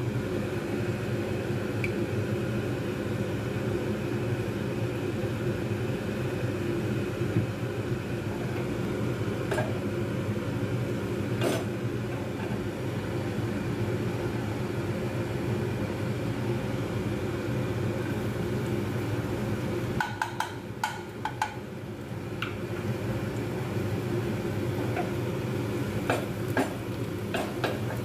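A steady motor hum drones under oil heating in a nonstick pan. A few sharp clicks come now and then, and in the last few seconds there are clicks and the start of a light sizzle as chopped garlic drops into the hot oil.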